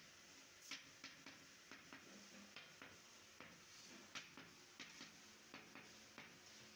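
Hammer tapping a wooden block laid on a fretwork pattern to bed it into the molding sand of a casting flask: a steady run of faint, sharp knocks, about two to three a second.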